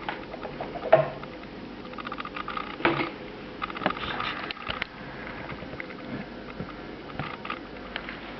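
Handling noise of a Bang & Olufsen Beolink 7000 remote control: scattered light clicks, taps and scraping, with sharper knocks about one and three seconds in.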